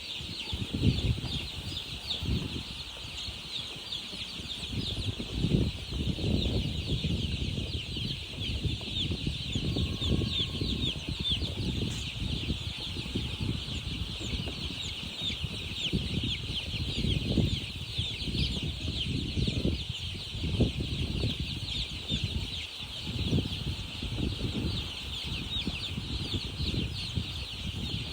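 A crowd of baby chicks peeping without pause, many short high falling cheeps overlapping. Irregular low thuds and rumbles come and go underneath and are the loudest moments.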